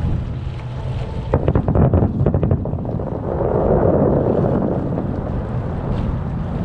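Fireworks bursting: a run of sharp bangs and crackles from about one and a half to nearly three seconds in, over a steady low wind rumble on the microphone.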